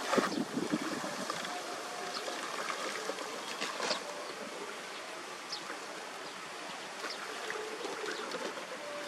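Canal water running and trickling past a debris clog, with splashes as a long pole is jabbed into the water and trash. The loudest splash comes just after the start and another follows about four seconds in.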